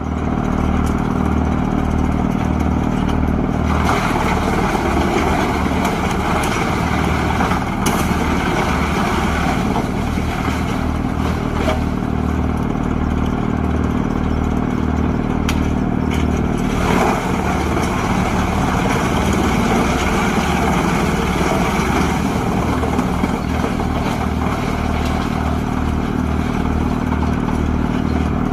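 Farmi CH380HF wood chipper's diesel engine running steadily under load while it chips timber, with a regular low throb and a few sharp cracks.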